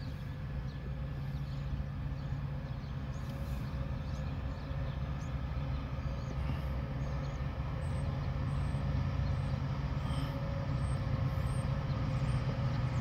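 Lead diesel locomotives of an approaching freight train, their engines a steady low drone that grows slowly louder as they come nearer.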